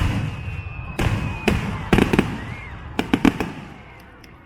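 Aerial fireworks bursting: about eight sharp bangs in quick succession, each trailing a low rumbling echo, then dying away near the end.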